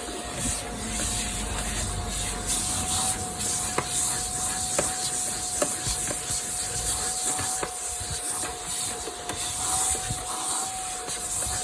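Vacuum cleaner running steadily while hoovering a car's front footwell: a constant motor whine over a strong rushing hiss of air, with a few sharp clicks.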